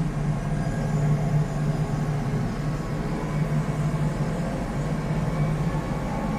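Massey Ferguson 4707 tractor's diesel engine running steadily under load as it pulls a 7-foot back blade through sand, heard from the cab.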